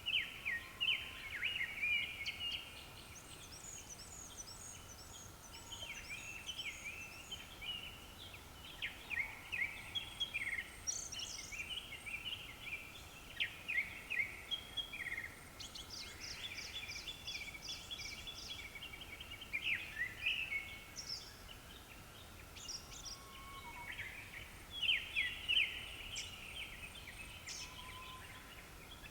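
Japanese thrush singing: bursts of varied, rapidly repeated whistled and fluty notes, phrase after phrase every few seconds, with a few higher thin notes.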